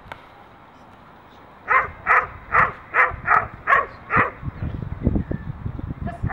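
A Doberman barking hard, seven quick barks in a row, at a helper during protection training, straining on its leash. Then low thuds and scuffling as it lunges.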